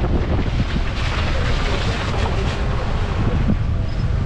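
Toyota Fortuner driving over a muddy dirt track, heard as a steady low rumble: wind buffeting the outside-mounted microphone mixed with engine and tyre noise.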